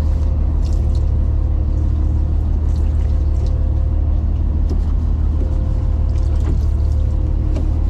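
Fishing boat's engine running steadily: a constant low rumble with a faint hum above it, and a few light ticks scattered through.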